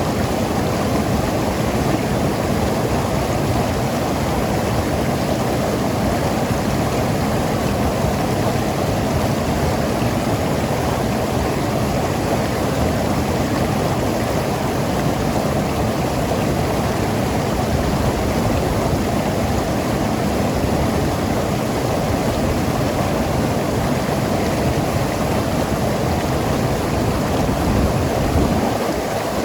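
Mountain river rushing and gurgling over rocks in a steady, unbroken flow.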